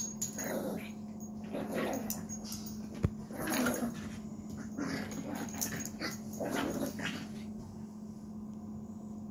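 Small dog growling and huffing in short bursts as it plays rough with a stuffed toy, with one sharp knock about three seconds in. A steady low hum runs underneath.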